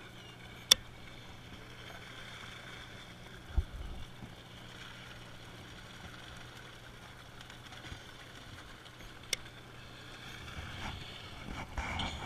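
Handling of a baitcasting fishing reel on a drifting boat: a sharp click near the start and another about nine seconds in, and a soft thump about three and a half seconds in. Rustling handling noise rises near the end, over a low steady hum and faint water.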